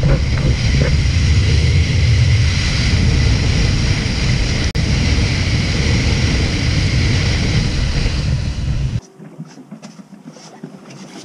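Loud steady rumbling, rushing noise that stops abruptly about nine seconds in, leaving a much quieter background with light clicks.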